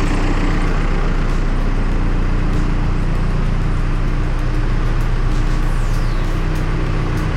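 An engine running steadily at idle with a low, even drone.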